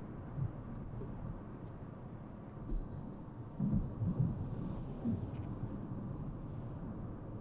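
Cabin noise of a Dacia Sandero Stepway Extreme cruising on a wet road: a steady low rumble of engine and tyres, with a few louder low thumps a little over three and a half seconds in, and again near four and five seconds.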